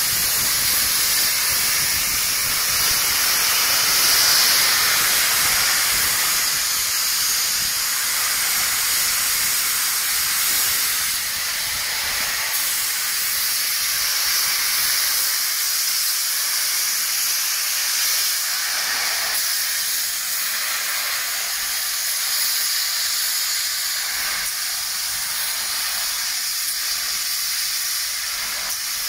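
LNER A4 Pacific steam locomotive blowing steam from its cylinder drain cocks as it pulls away: a loud, steady hiss that eases a little after about ten seconds.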